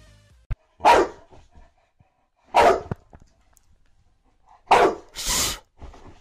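A dog barks three times, about two seconds apart, followed right after the third bark by a short burst of rushing noise.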